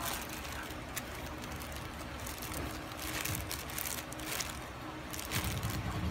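Plastic packaging crinkling and rustling as hands pull wrapped microphone-kit parts out of a cardboard box, busiest a few seconds in. A low rumble comes in near the end.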